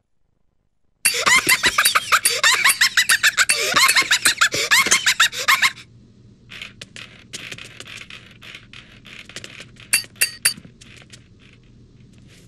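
Loud, dense, high-pitched squeaking with many quick up-and-down glides starts about a second in and stops abruptly near 6 s. Fainter scratchy rustling follows, with a few sharp metallic clinks about 10 s in.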